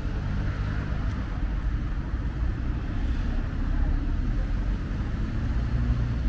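Steady low rumble of distant city road traffic.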